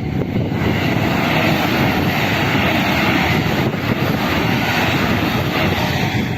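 A train passing through a railway level crossing: a loud, steady rush of wheel and running noise that swells in the middle and eases near the end.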